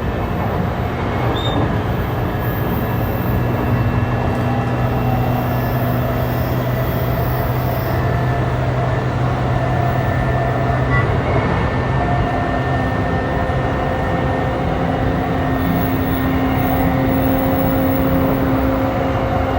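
JR East E235-1000 series electric train running between stations, heard from inside the car: a steady rumble of wheels on rail with a few steady tones from the running gear over it.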